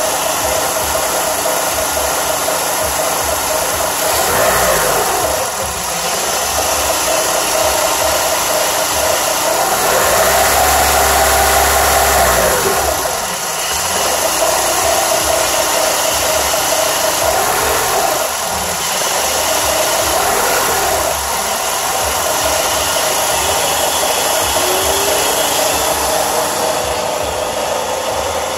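A 2002 PT Cruiser's four-cylinder engine idles unevenly over a steady rushing noise. The revs climb and drop several times on their own, with one longer rise about ten seconds in. The owner counts this hunting idle among the things it has been doing lately, with the engine computer possibly still relearning after new plugs and wires.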